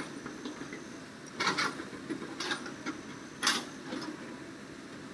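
Hitachi hydraulic excavator at work: a steady engine drone, with three or four short scraping clatters as its bucket digs into stone and earth.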